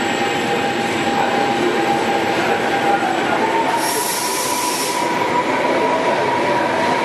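Vivalto double-deck passenger coaches rolling past slowly, pushed by an E464 electric locomotive that comes by near the end. The wheels give a steady squeal that rises in pitch about three seconds in, and a burst of hiss comes about four seconds in and lasts about a second.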